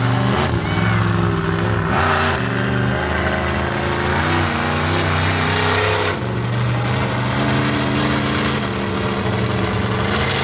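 Monster truck engine revving as the truck drives a freestyle course, its pitch rising and falling as the throttle opens and eases, with a loud surge about two seconds in.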